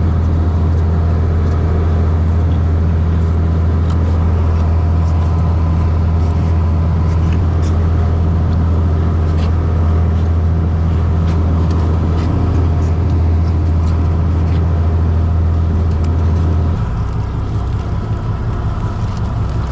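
A boat's engine running steadily with a deep, loud hum. Near the end its note drops and it gets quieter.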